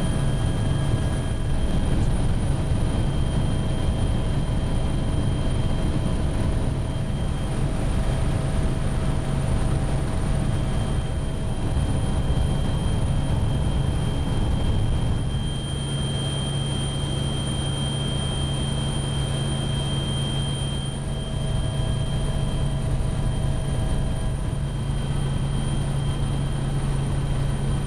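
Steady drone of an aircraft's engines heard from aboard, a deep hum with a few constant whining tones above it; the hum grows slightly stronger about halfway through.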